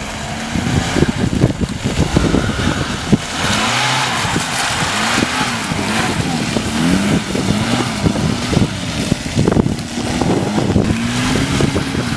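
Lada Niva engine revving up and down again and again while driving off-road, its pitch rising and falling every second or so. Frequent knocks and thumps run through it.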